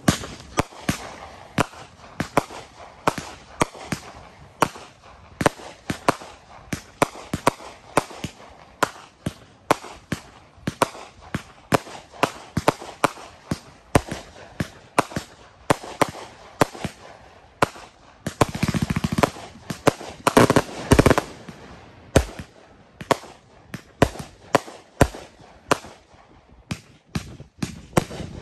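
Consumer 1.4G firework cakes firing: a steady run of sharp launch pops and aerial bursts, about two or three a second. A denser, louder volley comes about two-thirds of the way through.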